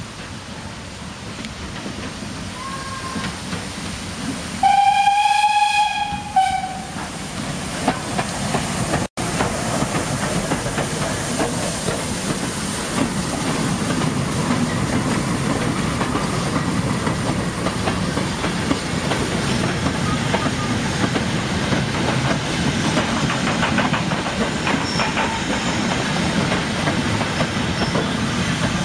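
Steam tank locomotive blowing its whistle: a short faint toot, then one clear blast of about two seconds about five seconds in. The engine and its train of goods wagons then run past close by, with steady running noise and wheels clicking over the rail joints.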